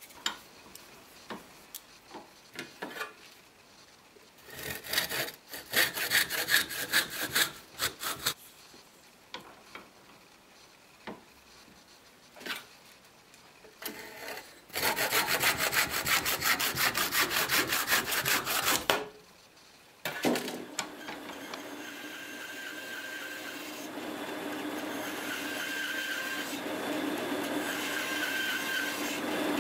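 Bursts of rapid sawing strokes on a small turned wooden piece, loudest for about four seconds past the middle. About two-thirds of the way in, a bandsaw starts running steadily and cuts slots into the wooden ball of a toy microphone.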